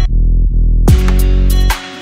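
Background music with a deep, steady bass line and a sharp downward pitch swoop about a second in; the music dips in level briefly near the end.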